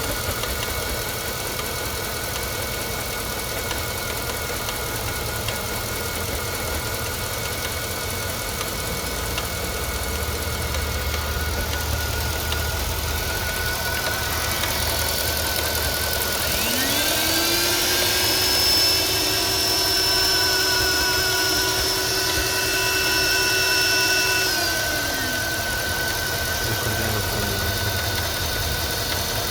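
Mercedes-Benz S500's 5.5-litre M273 V8 running with an irregular, non-rhythmic clatter, a fault still undiagnosed that the owner thinks may involve the variable intake manifold or the cooling system. About halfway through a whine rises in pitch, holds for several seconds and falls away.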